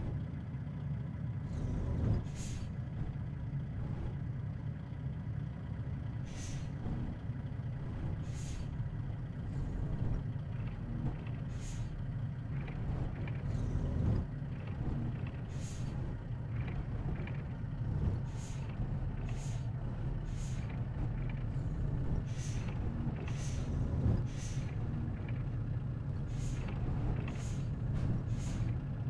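A steady low rumble overlaid with short, sharp hissing bursts. The bursts come every few seconds at first and grow more frequent in the second half.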